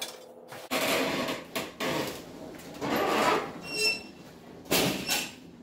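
Irregular clattering, rubbing and scraping as a riding lawn tractor, engine off, is pushed by hand across a concrete floor, with a brief squeak a little past the middle.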